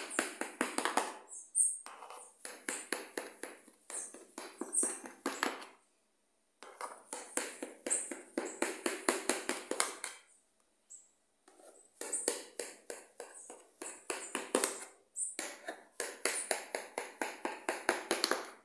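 Kitchen knife being drawn through a slab of set maria mole (gelatin coconut marshmallow) in an aluminium baking pan, making runs of rapid sticky clicks and scrapes. Each run lasts a second or two, with short pauses between cuts.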